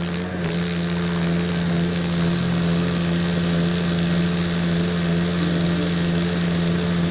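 A heavy machine's engine running at a steady speed, with a constant hum and a steady hiss over it.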